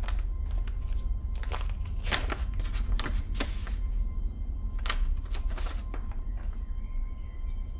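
Irregular light clicks and knocks over a steady low rumble, with faint music underneath.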